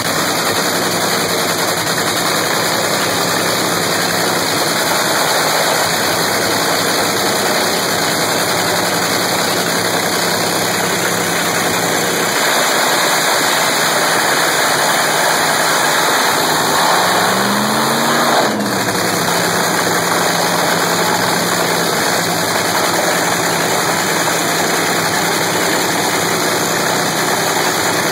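Nitro dragster's supercharged V8 idling steadily during its pit warm-up, with one brief rev that rises and falls about two-thirds of the way through.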